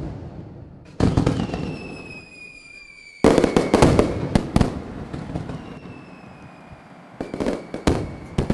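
Fireworks going off: sudden bursts of crackling about a second in, at about three seconds and again near the end, with a thin whistle slowly falling in pitch above the crackle.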